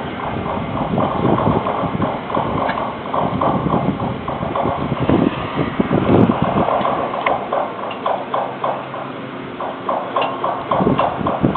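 Big Chute Marine Railway boat carriage running on its rails, a dense run of irregular clunks and knocks over a steady mechanical rumble.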